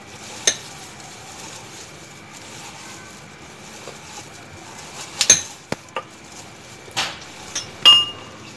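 Lime pieces and mint leaves being muddled in a stemmed glass with a pounder: scattered knocks and clinks of the pounder against the glass, about six in all, the loudest near the end with a brief ring.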